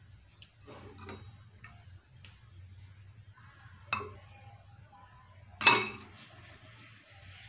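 Kitchen utensils handled while roti dough is being rolled out and spread: a few light clicks, a sharp knock about 4 s in, and a louder short clink of dishes about two-thirds of the way in, over a faint low hum.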